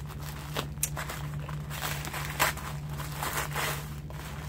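A package being opened by hand: irregular rustling and crinkling of its wrapping, with a few sharper crackles, the loudest about two and a half seconds in.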